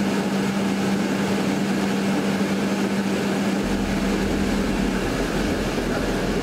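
Steady rushing cabin noise of a tanker aircraft in flight, heard from inside, with a steady low hum that stops about five seconds in and a deeper rumble coming in about four seconds in.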